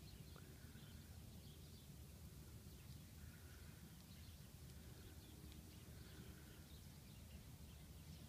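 Near silence: faint outdoor ambience with a low rumble and faint, scattered bird chirps.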